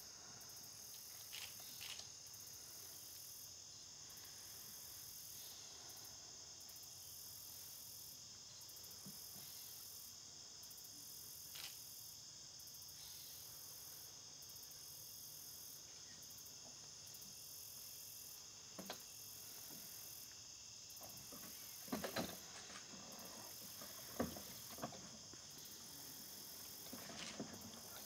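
Insects trilling steadily in a high, faint chorus, with occasional soft knocks and rustles, the loudest a few short clusters about three quarters of the way through.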